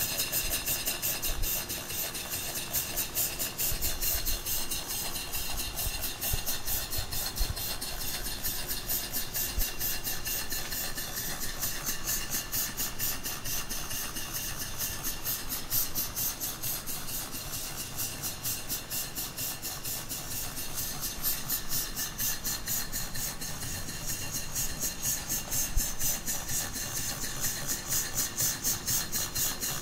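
Antique model horizontal steam engine (2-inch bore, 2½-inch stroke, governed by a ball governor) running steadily, with rapid, evenly spaced hissing exhaust chuffs and the whir of its moving parts.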